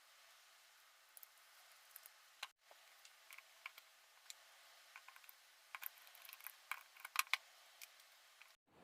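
Faint, scattered clicks and light taps of small hard parts being handled, as in work on an old drill during restoration. A quick run of sharper clicks comes about six to seven seconds in.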